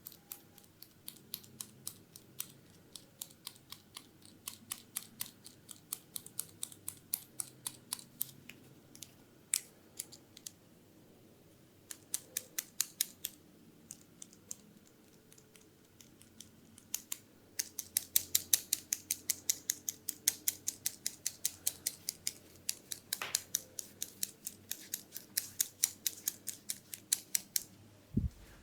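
Quick runs of crisp, high clicks close to the microphone, several a second, from ASMR massage tool work on the head. The runs stop and start, and are densest and loudest in the second half.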